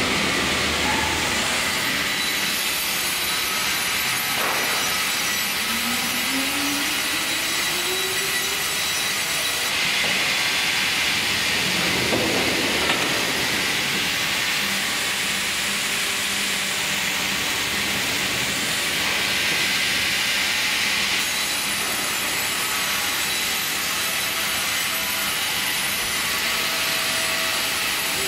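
FİMAKSAN log band sawmill running: a steady hissing machine noise from the vertical band saw and log carriage, changing in tone twice. A whine rises in pitch from about four to eight seconds in.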